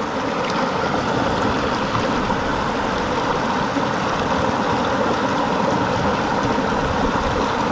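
Shallow, rocky mountain creek running over stones, a steady rush of water.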